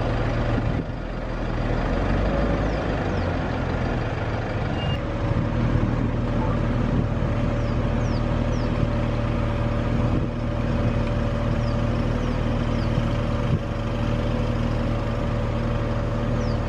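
Vehicle engine idling steadily, a continuous low hum with a steady drone above it.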